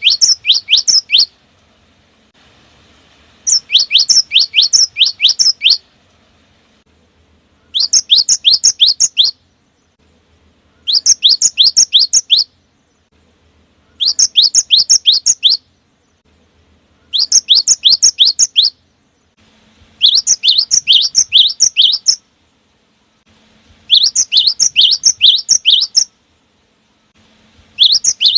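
Cinereous tit (gelatik batu) singing loudly in repeated bursts. Each burst is a quick run of six to eight sharp falling whistled notes, and a new burst comes every three to four seconds.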